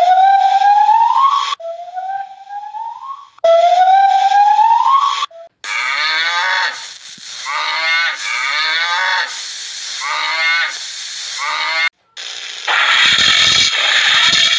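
A run of animal calls. First come three rising, whistle-like cries, each about a second and a half long, the middle one quieter. Then cattle moo repeatedly for about six seconds. After a short break, a rustling, scraping noise starts a little before the end.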